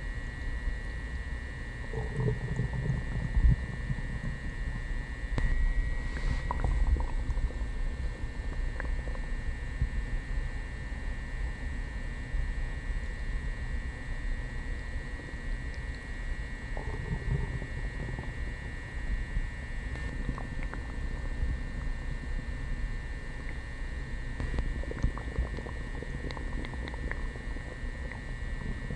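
Upset stomach gurgling and rumbling after coffee and prune juice, heard from a short distance rather than with a mic pressed to the belly. Irregular low churning, with louder gurgles a couple of seconds in and again a little past halfway.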